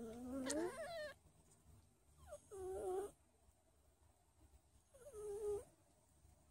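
Young Don Sphynx kittens mewing: three short, high cries a couple of seconds apart, the first rising in pitch.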